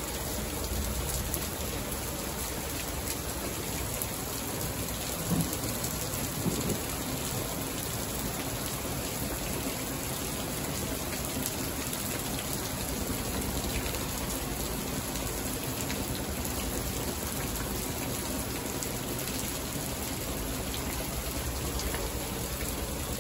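Heavy rain pouring down steadily, with thunder rumbling.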